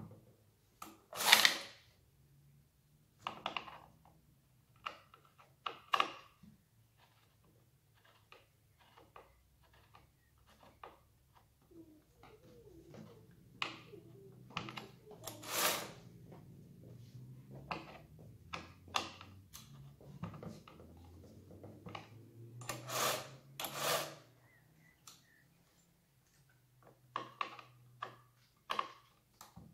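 Clicks, knocks and rattles of plastic and metal parts being handled and fitted as a Husqvarna T540i XP cordless chainsaw's guide bar, chain and side cover are put on with a small tool, with a few sharper knocks on the workbench.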